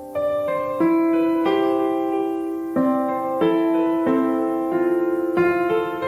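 Background piano music: notes and chords struck one after another and left to ring, at an unhurried pace.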